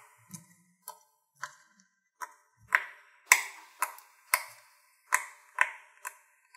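Bubbles of a silicone pop-it fidget toy being pressed in one by one with a finger, each giving a sharp pop. There are about a dozen pops at roughly two a second.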